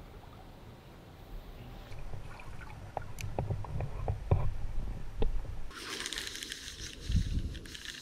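Muffled lake water sloshing and gurgling against an underwater camera, with scattered knocks and clicks. Near the end it changes abruptly to a crisp, crackling rustle with a low thump.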